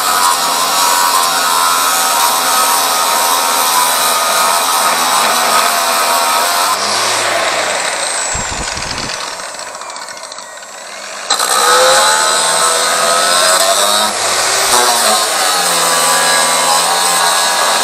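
Angle grinder cutting into steel with a cutting disc. About seven seconds in it is lifted off and spins down with a falling whine, then it starts up again abruptly about four seconds later and resumes cutting.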